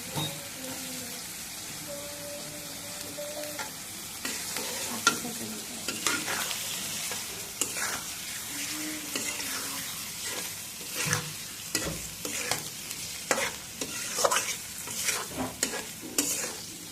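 Food sizzling in hot oil in a pan while a spatula stirs and scrapes it. The sizzle is steady; sharp clicks and scrapes of the spatula start about five seconds in and come thick and fast in the second half.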